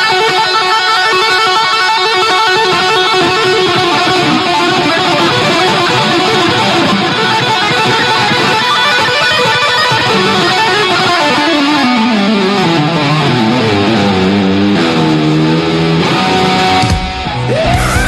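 Hard rock band playing live, with an electric guitar holding long sustained notes over the band. About two-thirds through, the lead line falls steadily in pitch and then wavers with vibrato, and the sound dips briefly near the end before the band comes back in.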